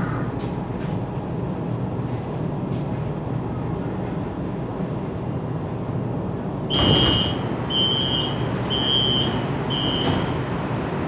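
Inside the cabin of a CSR Zhuzhou 'AMY' LRT car: the steady hum of the train standing at a platform. About seven seconds in comes a sudden loud rush of noise as the doors open, followed by four high beeps about a second apart, the door-opening warning.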